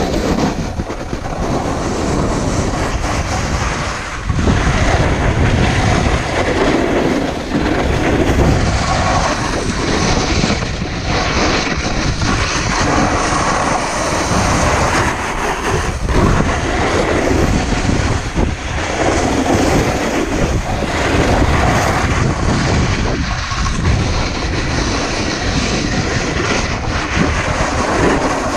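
Snowboard sliding and scraping over firm, icy snow on a fast downhill run, a loud continuous rumbling scrape mixed with rushing air on the camera microphone. It swells and eases several times as the rider turns.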